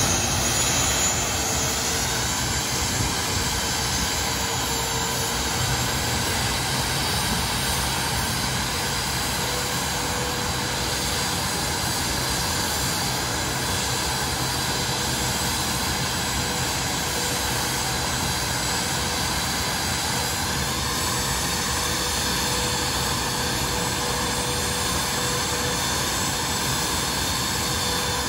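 Jet engine of a jet-powered funny car running steadily while the car sits parked: a dense, even rush with a high turbine whine over it. The whine rises slightly about twenty seconds in.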